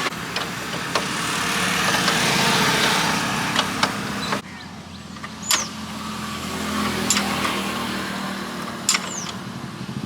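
A motor vehicle's engine running steadily, under a loud hissing noise that cuts off sharply about four seconds in, with scattered sharp clicks and knocks.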